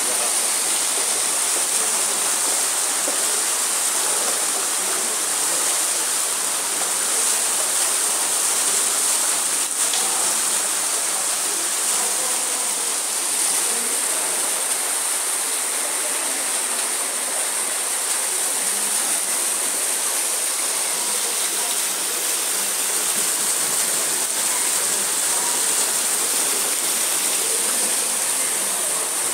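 Muddy floodwater rushing steadily down a street during a flash flood.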